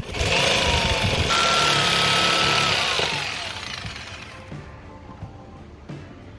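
Oscillating multi-tool cutting into a motorhome's fiberglass-and-foam wall, a loud buzzing cut with a whining tone that dips in pitch, running about three seconds and then winding down.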